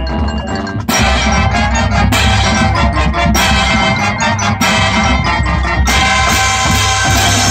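High school marching band and front ensemble playing. About a second in, the full band comes in louder, with accented hits about every second and a quarter.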